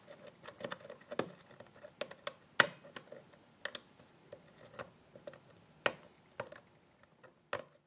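Lock pick and tension tool working inside a pin-tumbler lock with security pins: irregular small metallic clicks and ticks as the pick lifts and sets pins under tension.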